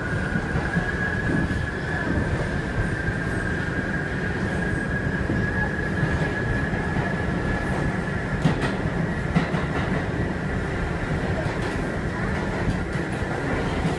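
R62A subway car running, heard from inside the car: a low rumble with a steady, high motor howl that rises slightly in pitch over the first several seconds and then holds. A couple of sharp knocks come about eight and nine seconds in.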